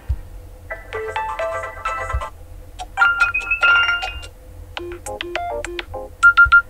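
OPPO A18 smartphone playing ringtone previews through its speaker, one short melody after another, each cut off after about a second as the next tone from the ringtone list starts. Near the end come three quick, loud beeps.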